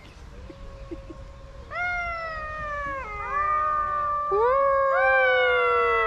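Golden jackals howling in chorus: several overlapping wailing howls, each rising briefly and then sliding down in pitch. The howls come in about two seconds in, with more voices joining and the chorus growing louder toward the end.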